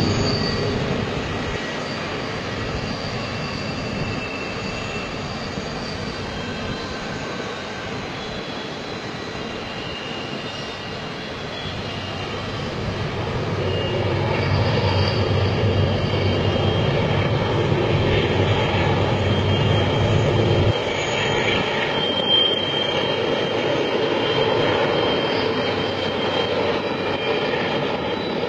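Long double-stack freight train rumbling along a curving track, with thin high squeals over the rumble. It grows louder from about 13 seconds in and drops back at about 21 seconds.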